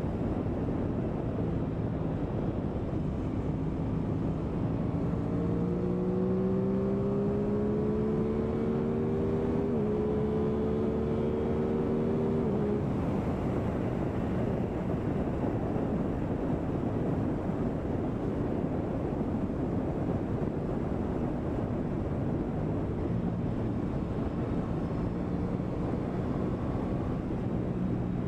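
2023 Aprilia Tuono 660's parallel-twin engine running at road speed under heavy wind rush on the microphone. Several seconds in, the engine note rises steadily as the bike accelerates, holds briefly, then drops back into the wind noise.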